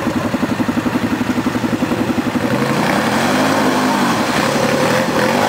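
Quad bike (ATV) engine running close by with a rapid, even pulse, then revving up about three seconds in as the quad drives down into a muddy water hole.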